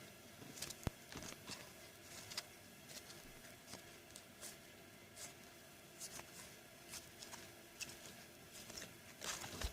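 Faint, scattered clicks and soft rustles of shiny trading cards being handled and flipped through one by one, with one sharper click about a second in.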